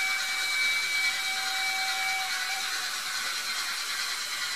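Märklin HO T 18 model steam locomotive and its coaches running past on the track: a steady whirring and rolling noise that is loudest about a second in, as the train passes close, and then slowly fades. A held high tone sounds over it and stops about two seconds in.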